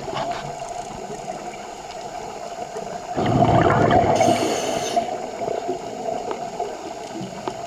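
Scuba regulator breathing heard underwater: a burst of exhaled bubbles about three seconds in, lasting nearly two seconds, over a steady hum.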